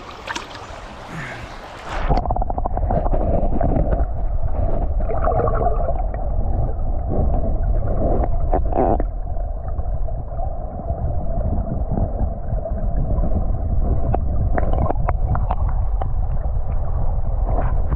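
River water heard through a submerged camera: muffled, low rushing and gurgling of the current. It starts about two seconds in, after a short stretch of open-air stream sound as the camera goes under the surface.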